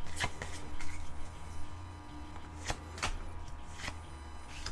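Pokémon trading cards from a freshly opened booster pack being handled and flipped through, giving a handful of light clicks and flicks of card stock over a low steady hum.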